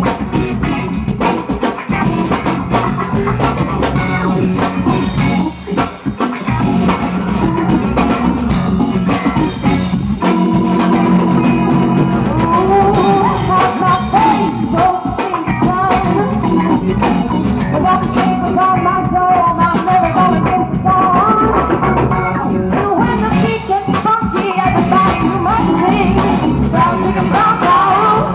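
Live rock band playing, with drum kit, electric guitars and bass, and a woman singing at the microphone.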